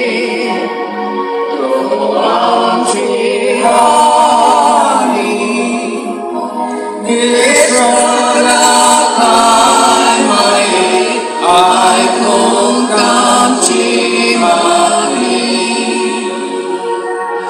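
Church choir singing a hymn in continuous phrases.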